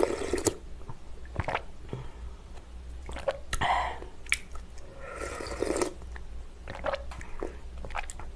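Close-miked slurping of spicy seafood jjamppong broth sipped from a plastic ladle, in three separate slurps, with short clicks in between.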